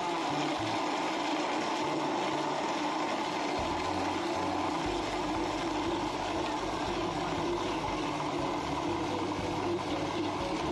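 Countertop electric blender running steadily, its motor and blades churning ice into a red fruit slush for a blended drink.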